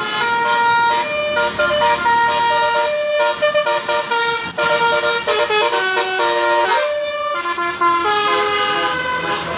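A bus's Basuri multi-tone musical air horn plays a fast telolet melody, one note after another with no break. Between about five and seven seconds in, a few notes slide in pitch.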